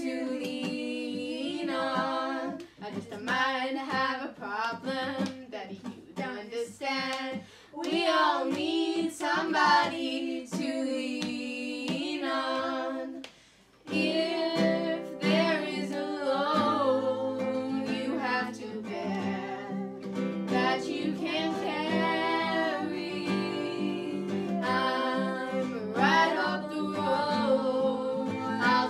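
Several female voices singing together to an acoustic guitar. The sound breaks off briefly about 13 seconds in, then the singing carries on over fuller, steadier guitar chords.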